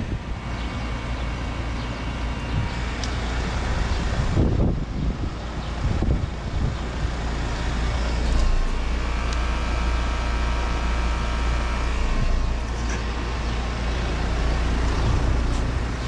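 2023 Lennox Merit two-ton heat pump outdoor unit running in cooling mode: its two-blade condenser fan and Copeland scroll compressor give a steady low hum with fan air noise, and a faint high whine comes in about halfway through.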